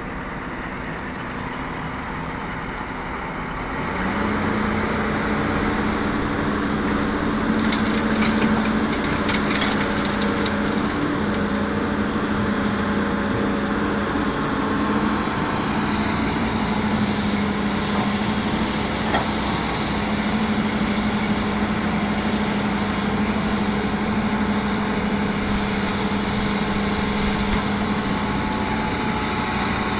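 Hitachi hydraulic excavator's diesel engine running, stepping up to a higher steady note about four seconds in as it works under load. Around eight to ten seconds in comes a burst of crackling and rattling over the engine.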